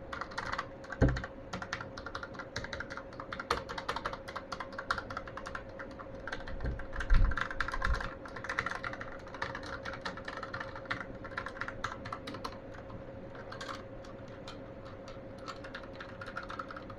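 Typing on an Armaggeddon SMK-12R low-profile mechanical keyboard with Outemu short black switches: a fast, irregular run of key clacks, with a few heavier thumps about a second in and again around seven to eight seconds in, thinning out near the end.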